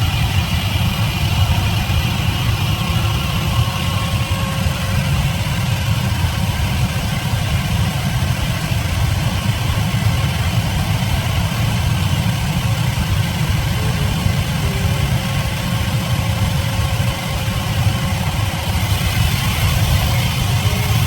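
Sawmill machinery running steadily: a continuous low engine-like drone that holds at an even level throughout.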